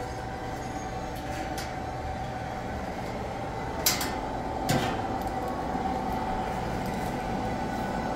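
A steady low hum, with two sharp knocks a little under a second apart near the middle.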